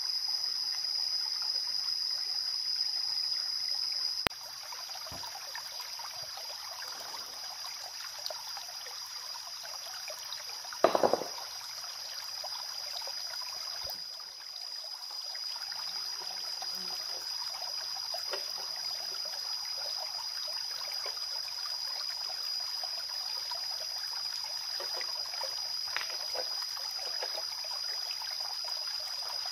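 Shallow rocky forest stream trickling, under a steady high-pitched drone. A quick cluster of sharp knocks about eleven seconds in is the loudest moment.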